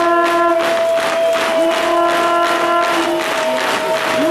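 Brass instruments playing: one long held note, with a lower note that slides up into place and comes in three times, over a fast steady beat of about four strokes a second.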